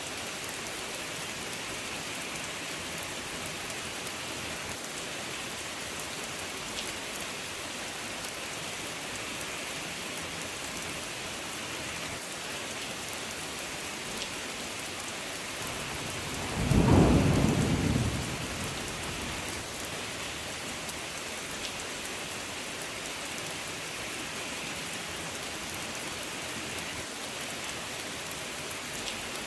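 Steady rain falling, with a single loud rumble of thunder about two-thirds of the way through that swells and fades over about two seconds.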